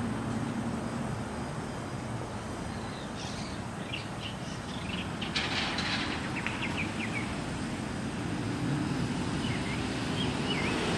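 Outdoor ambience: a steady distant traffic hum, a low drone fading in the first second, and birds chirping in a cluster of short calls from about three to seven seconds in, with a few fainter calls near the end.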